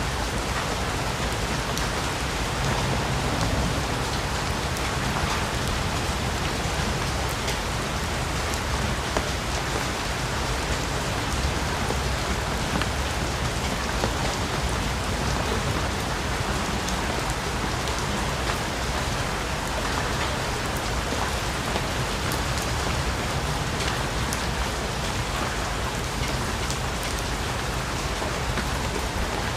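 Steady rain falling in a rainforest, a constant hiss with many scattered drops pattering on leaves and surfaces.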